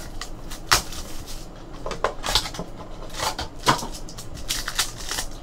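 Trading cards and their cardboard and plastic packaging being handled on a table: a scatter of light clicks, taps and rustles, with a few sharper knocks about a second in and again around two and a half and four seconds in.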